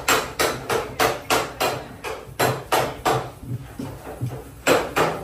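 Hammer blows on car body sheet metal, panel beating, at about three strikes a second, with a pause about three and a half seconds in before two more blows.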